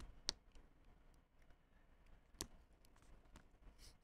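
Faint scattered clicks and ticks of a Samsung Galaxy A32's plastic frame clips being pried loose with a pry tool. The sharpest clicks come at the start, about a third of a second in, and about two and a half seconds in.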